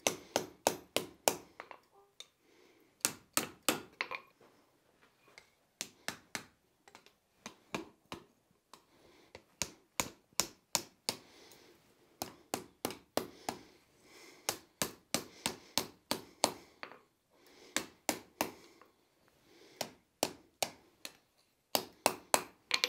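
Hand hammer striking red-hot steel on a steel anvil block, rolling the end of a strip into a hinge eye. Runs of quick blows, each with a short ring, broken by brief pauses.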